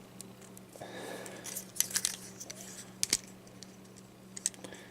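Small plastic clicks and light rattles of a Transformers Studio Series deluxe Stinger figure's parts being folded and snapped into place by hand. A few sharp clicks are scattered through, the loudest about three seconds in.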